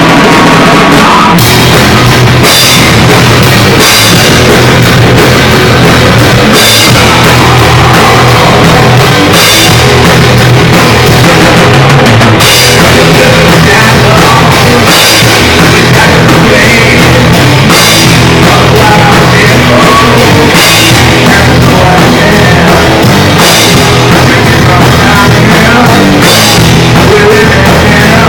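Garage rock band playing a loud rock song: drum kit with repeated cymbal crashes over a steady bass line, recorded near full volume.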